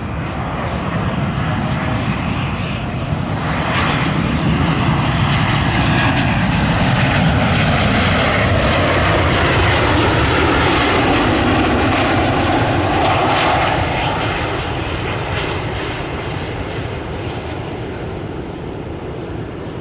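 Boeing 737-800 jet arriving and passing by, its CFM56 turbofans' roar swelling to a peak through the middle and fading over the last few seconds, the engine whine bending in pitch as it goes past.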